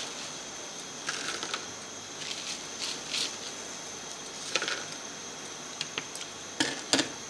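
Spatula scraping and tapping on a camp plate while fried potato cubes are scooped off a paper towel and dropped onto the plate: a series of light clicks, clatters and brief rustles.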